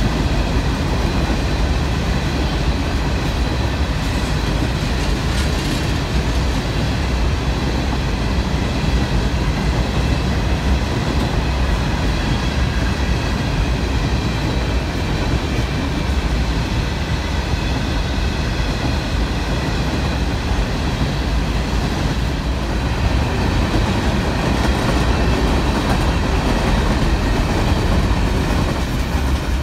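Freight train of loaded open-top hopper cars rolling steadily past: a loud continuous rumble of steel wheels on rail, with faint high steady whining tones above it.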